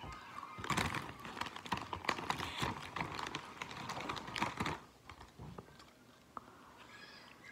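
Plastic Doritos chip bag crinkling and crackling as a hand works in it for about four seconds, followed by a few quieter crunches of a tortilla chip being bitten.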